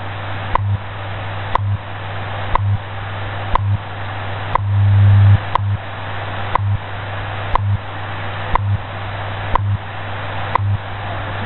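WWV shortwave time signal received in AM on a software-defined radio. A short tick sounds once a second over shortwave static and a steady low hum. The hum is the station's 100 Hz time code, and it swells into a longer, louder stretch about five seconds in.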